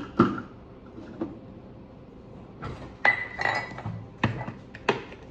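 Kitchen dishes and utensils clinking and knocking as they are handled: several separate knocks, the one about three seconds in ringing briefly.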